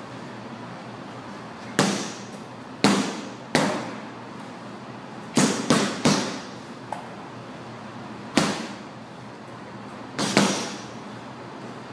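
Gloved punches landing on a hanging heavy punching bag, about nine sharp hits at uneven spacing. Some come singly and some in quick two- or three-punch combinations, each with a short echo in the room.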